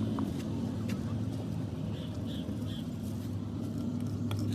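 An engine running steadily at idle, with a few faint ticks.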